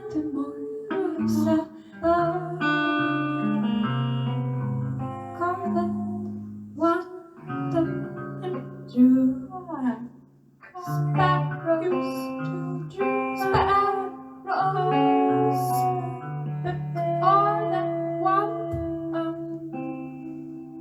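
Guitar played through effects: plucked notes and chords ringing on and overlapping one another.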